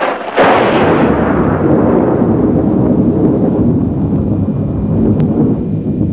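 Explosion sound effect: a sudden boom about half a second in, followed by a long rumble that slowly dies away.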